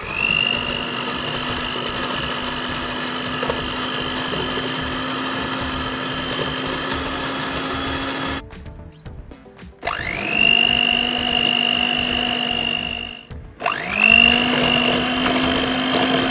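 Electric hand mixer with twin wire beaters running in a glass bowl, creaming butter and sugar. It runs in three stretches, stopping about 8 seconds in and again about 13 seconds in. Each stretch starts with a rising whine as the motor spins up, then settles into a steady hum.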